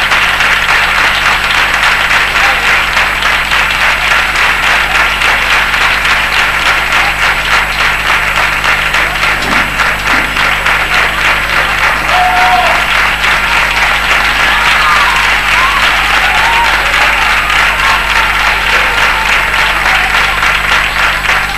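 Theatre audience applauding steadily, a dense patter of many hands clapping, with a few voices calling out over it about halfway through.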